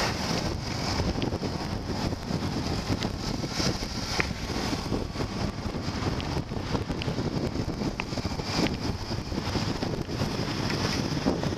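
Wind rushing and buffeting over the microphone of a camera on a moving motorbike, over the steady noise of the bike riding on a wet road.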